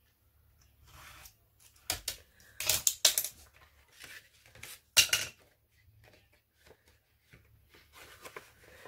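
Clatter and knocks of an acrylic ruler and a snap-off craft knife being put down on a hard craft mat, then card stock being picked up and handled, with a cluster of sharp knocks about two to three seconds in and one loud knock about five seconds in.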